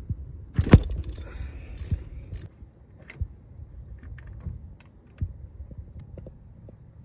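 Metal hand tools clinking: a ratchet, extension and spark plug socket handled around the engine. There is a sharp knock under a second in and a run of clatter for about two seconds, then scattered light ticks.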